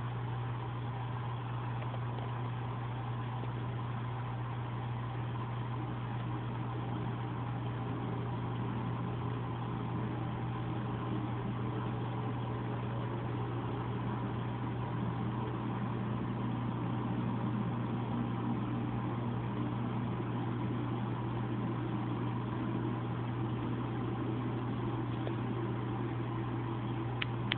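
A steady machine hum with a strong low tone and a fainter higher tone, unchanging throughout; a few sharp clicks right at the end.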